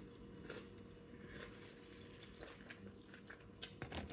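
Faint close-up chewing of a mouthful of salad: soft, scattered crunches, with a few sharper clicks near the end.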